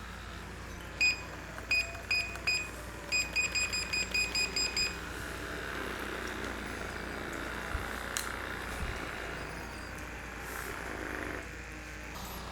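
Electronic beeps from a device: a single high beep about a second in, three more, then a quick run of about nine, like buttons being pressed on a keypad.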